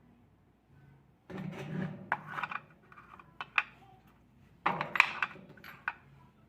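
Washing-machine clutch and pulley parts being handled and fitted together: two short bursts of clattering with sharp clicks, about a second in and again near the end.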